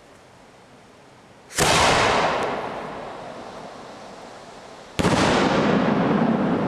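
Two loud bangs from homemade aerial firework shells, about three and a half seconds apart. Each one is followed by a long, slowly fading rolling echo.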